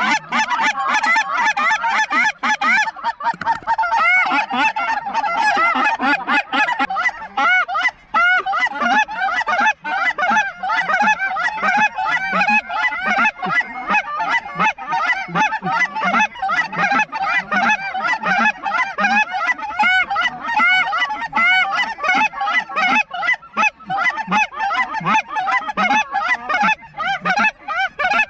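Several Canada goose calls blown at once by a team of callers: a constant run of overlapping honks and clucks with no break, the callers trading off so the sound never stops.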